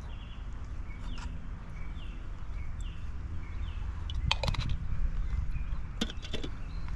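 Sharp clicks and taps of a can of purple PVC primer and its dauber being handled, a few around the middle and one near the end, over a steady low hum and faint repeated short chirps.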